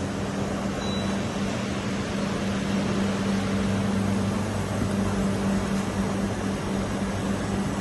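CB Ferrari A17 five-axis machining center running under power: a steady machine hum with a constant low drone and an even rush of noise.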